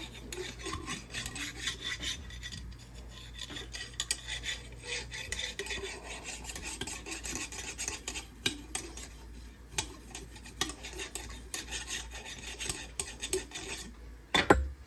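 Wire brush scrubbing back and forth on the steel parts of a cap-and-ball revolver: an irregular rasping scrape, loosening the fouling. A sharp knock near the end.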